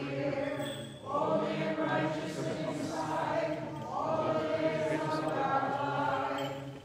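Voices singing Byzantine liturgical chant, in long held phrases, with a new phrase starting about a second in and another about four seconds in.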